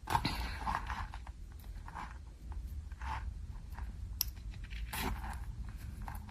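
Fine metal jewelry chains and a jump ring being handled and fitted together, giving light irregular clicks and small scrapes, with a sharper tick about four seconds in and another about five seconds in.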